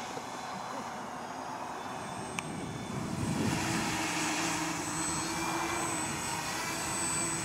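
Electric multirotor's motors and propellers humming steadily as it flies, with steady tones in the hum, getting louder about three seconds in.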